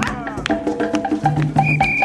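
Background music with percussion knocking out a steady beat about four times a second over held notes, with a brief falling sweep at the very start.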